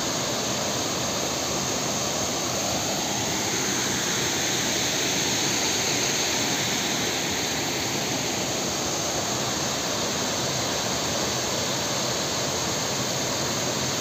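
Waterfall: water falling and splashing in a steady, unbroken rush.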